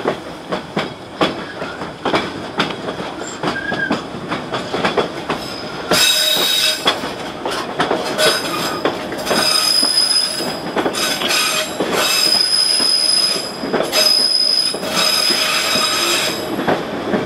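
Narrow-gauge passenger train heard from an open car platform, its wheels clicking over the rail joints. From about six seconds in, the wheels set up a steady high-pitched squeal that comes and goes, the flanges grinding against the rail on a curve.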